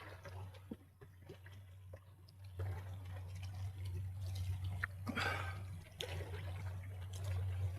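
A boat's outboard motor running low and steady in gear, with water splashing and dripping at the hull; a louder splash comes about five seconds in.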